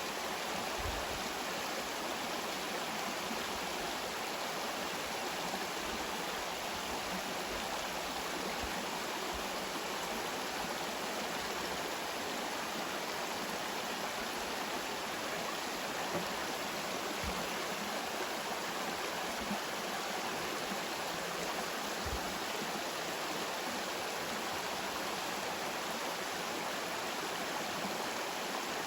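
Steady rushing of a shallow, low-running river flowing over rocks.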